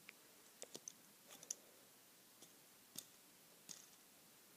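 Faint, irregular clicks of small plastic Lego pieces being handled, about seven over a few seconds, against near silence.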